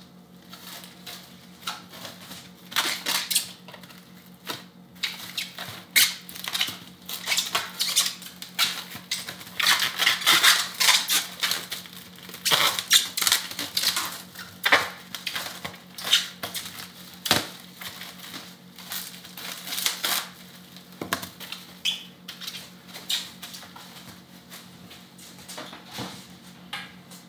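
Plastic cling wrap being pulled from its roll and crinkled by hand: a dense run of irregular crackles that thins out after about twenty seconds.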